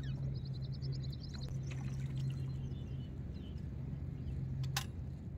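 A steady low hum, with a bird's rapid trill of repeated high notes in the first second and a half. Near the end a sharp click sounds and the hum stops.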